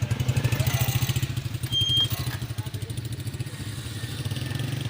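Honda 125 motorcycle's single-cylinder four-stroke engine idling, a steady rapid exhaust beat. A brief high chirp sounds about two seconds in.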